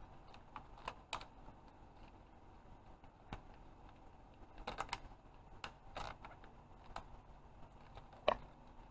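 Scattered light metal clicks and ticks of a small locking pin being worked down into the cam timing chain tensioner, with one sharper click near the end.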